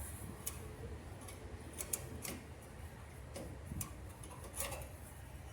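Scattered light clicks and taps, about six in all, from the dryer's replacement idler pulley and small parts being handled and fitted.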